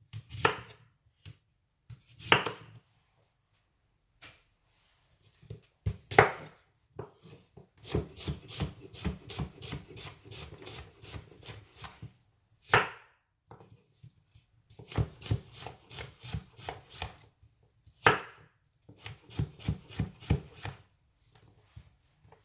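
Kitchen knife chopping a red apple on a cutting board: runs of quick strokes, about five a second, broken by single heavier knocks.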